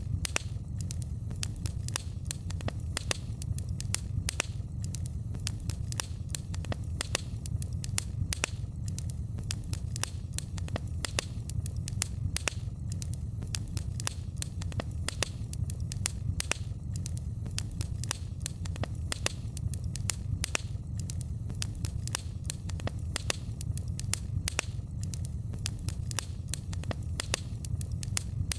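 Fire in a fireplace crackling, with frequent irregular sharp pops over a low, steady rumble.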